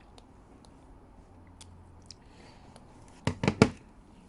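Hands working at a tight hard-plastic toy capsule egg: quiet rubbing and small clicks, then three sharp plastic clicks in quick succession about three seconds in.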